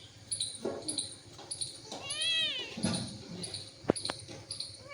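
A cat gives one long meow about two seconds in, rising and falling in pitch, over a run of short high chirps repeating about twice a second. There is a sharp click near the end.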